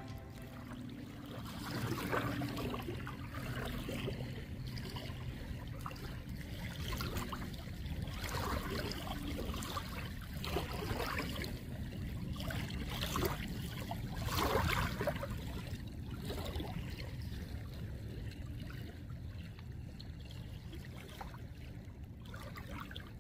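Small waves lapping and trickling in shallow lake water at the shore, with irregular soft splashes over a steady low rumble; the biggest splash comes about two-thirds of the way through.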